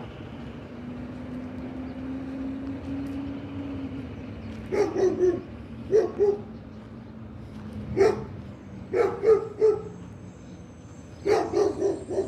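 Dog barking in quick runs of one to four barks, starting about five seconds in and coming five times.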